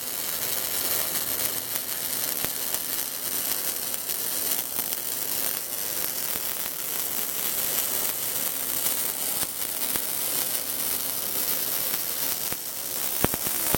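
Electric arc welding: the arc crackles and sizzles steadily as a bead is laid, with a few sharp clicks near the end.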